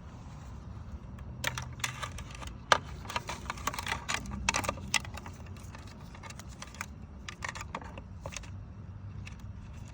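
Quick irregular plastic clicks and rattles, dense for a few seconds and then sparser, as a refrigerator's plastic dispenser trim panel is handled, unclipped and pulled off.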